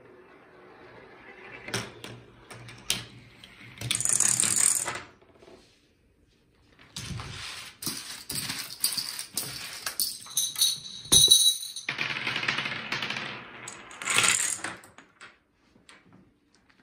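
Homemade chain-reaction machine running: marbles rolling and rattling along tracks and tubes, with a string of sharp clicks and knocks as parts strike and topple one another. There is a loud rolling rattle about four seconds in, then a long run of clattering with a brief ringing clink near the middle.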